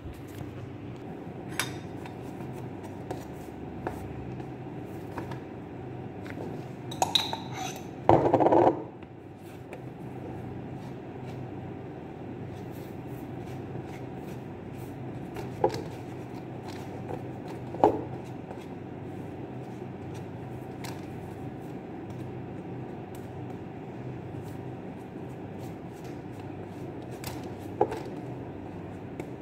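Kitchen counter work: scattered knocks and clinks of dishes and a knife, with one brief louder clatter about eight seconds in and a few ringing clinks later on. A steady low hum runs underneath.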